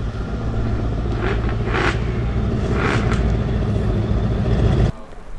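Mercedes-AMG C63 sedan's twin-turbo V8 running at low revs as the car pulls slowly away, a steady deep drone with a few short noisy flares over it. The sound cuts off suddenly near the end.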